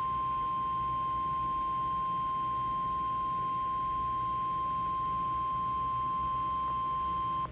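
Emergency alert warning tone, the single steady 1050 Hz weather-radio alarm tone, held as one unbroken high beep that cuts off just before the end. It signals that a warning message follows, here a severe thunderstorm warning.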